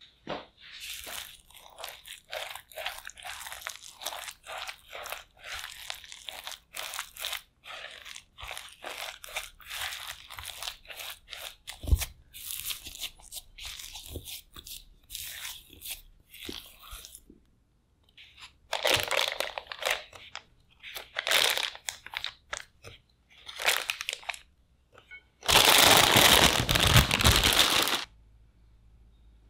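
Silicone spatula stirring and pressing a stiff dough of grated potato and corn flour in a glass bowl, a quick run of crunchy, squelching strokes with one knock against the bowl about twelve seconds in. Near the end come a few short rustles, then a loud rustle of about two seconds from the plastic piping bag being filled and handled.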